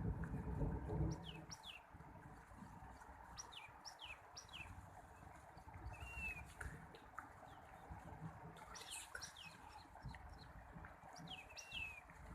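Small birds chirping in short, quick downward-sweeping notes, repeated throughout, with a few longer arched calls, over a steady low rushing background. A low rumble is heard in the first second or so.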